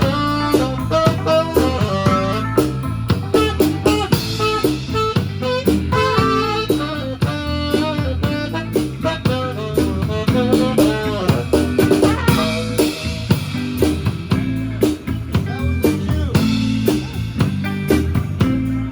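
Live band playing a song, with a drum kit keeping a steady beat including rimshots under saxophone and other instruments.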